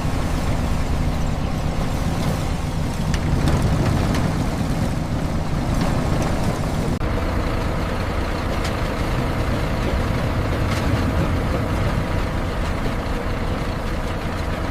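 Heavy truck engine running steadily with a low rumble, with a few faint clicks over it.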